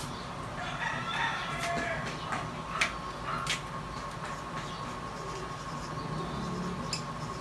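Felt-tip marker writing on a paper chart: quiet scratching and squeaks, with a few sharp taps of the markers, over a faint steady hum.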